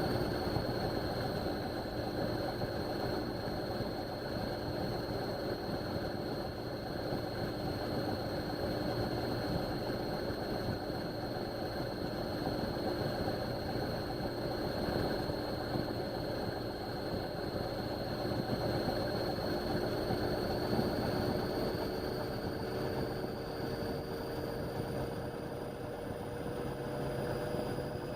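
Indesit washing machine spinning at a steady high speed: its motor gives a constant high whine over a rumbling drum. Near the end the whine creeps slightly higher as the spin speeds up a little more.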